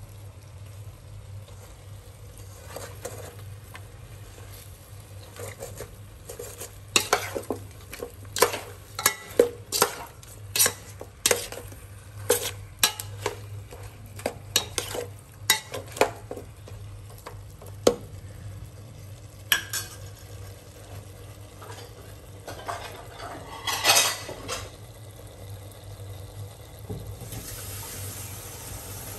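Metal ladle stirring pork pieces in a stainless steel pot, scraping and clinking against the pot's sides and bottom, with a faint sizzle from the meat frying. The clinks come in a quick run through the middle, with a louder scrape later, over a steady low hum.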